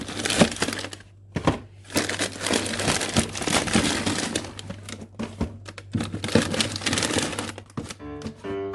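Plastic food packaging crinkling and rustling in bursts as items are handled and taken out of a fridge freezer, with piano music coming in near the end.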